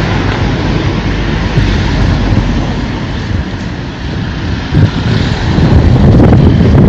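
Wind buffeting the microphone: a loud, irregular low rumble over a steady rushing hiss, growing louder about five seconds in.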